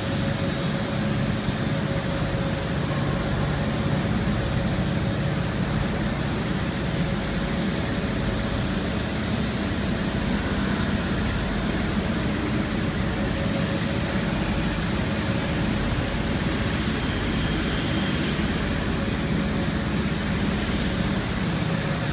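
Steady running noise of a CNC woodworking machining center: a constant low hum with a thin, steady whine above it.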